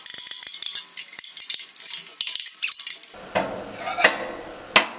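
Hammer striking tack-welded angle iron to knock it loose from quarter-inch steel plate. There are rapid light metallic taps and clinks for about three seconds, then a few heavier clangs, the loudest near the end, as the tack welds give way.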